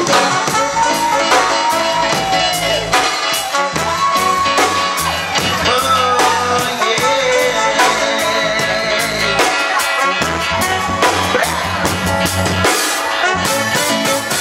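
Live band playing a song: a saxophone carries the melody over bass and a drum kit keeping a steady beat.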